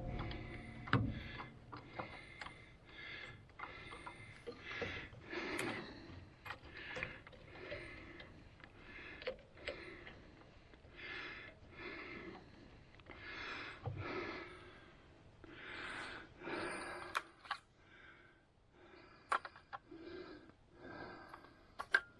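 A man breathing in a steady rhythm close to the microphone while straining to work a pump motor into place by hand. A few sharp clicks come from the metal parts being handled.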